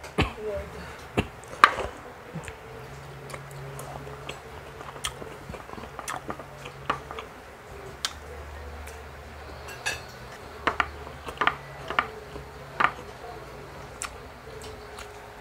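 Spoon and fork clicking against a plate in scattered single knocks, about a dozen of them, with chewing in between, over a faint low hum.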